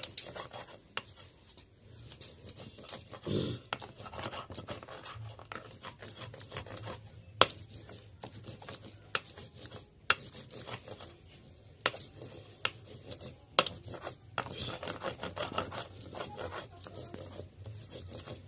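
A stone muller is being scraped back and forth over a ridged stone grinding slab (sil-batta), grinding green chillies, coriander and garlic leaves into a fine wet chutney paste. The grinding is a continuous gritty rasp, broken now and then by sharp knocks of stone on stone.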